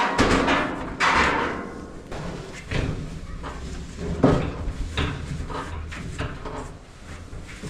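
Whirlpool electric dryer running with its drum turning: a steady low hum with a few knocks and clunks. The scratching noise is gone, which the technician puts down to the drum just scratching on the case.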